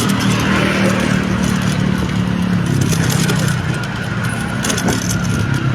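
A vehicle's engine running steadily while moving along a road, with a low hum and a constant haze of road and wind noise that eases slightly about two-thirds of the way through.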